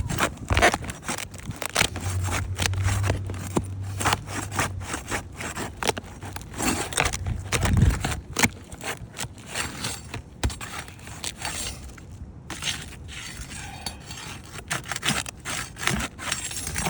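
Roof shingle being worked loose and pried out, with irregular scraping and clicking as it is forced up over its nails.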